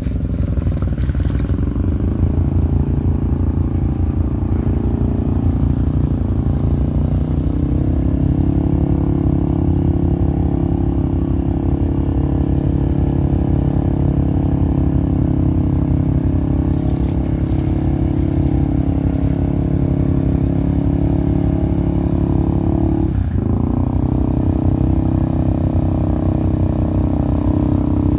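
ATV engine running steadily at low revs as the quad wades through floodwater. Its pitch dips briefly and comes back about twenty-three seconds in.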